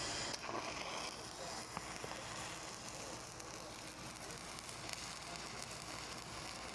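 Stick (shielded metal arc) welding with a 7018 electrode in the flat position: the arc burns steadily as an even hiss with fine scattered clicks.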